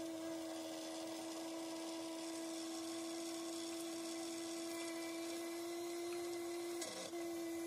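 Countertop blender running steadily, puréeing tomatoes, onion, garlic and chicken broth into a sauce, with a steady motor hum; the motor dips briefly about seven seconds in.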